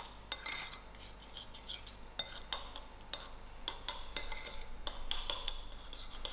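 Metal spoon stirring a sticky sauce glaze in a ceramic bowl, with irregular clinks and scrapes of the spoon against the bowl.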